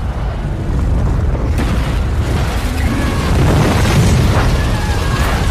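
Movie sound effects of a tornado scene and an explosion: a deep, continuous rumbling boom that builds to its loudest about four seconds in.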